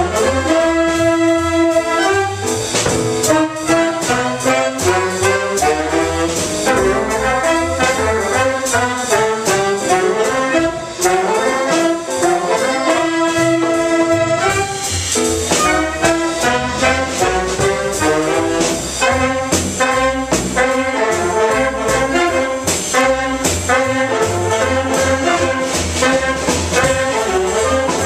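Big band playing jazz live: saxophones, trumpets and trombones with piano, double bass and a drum kit keeping time. The horns hold long ensemble chords twice, about a second in and again about halfway through, between busier moving lines.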